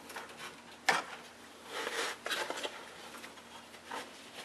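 A sharp plastic click about a second in, then rubbing and scraping with a few lighter clicks: hands fitting a ratcheting plastic hose pinch clamp onto a transmission cooler hose to stop transmission fluid from draining out.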